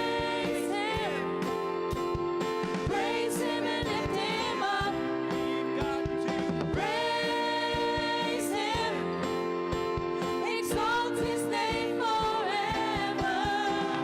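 Worship music: voices singing a slow song over steady, sustained accompaniment chords.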